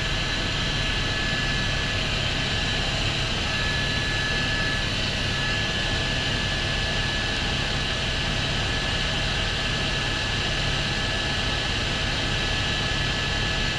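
Helicopter in flight heard from inside the cockpit: steady engine and rotor noise with a constant high whine over it.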